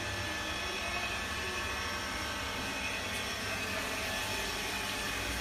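A steady, even background drone with no distinct events.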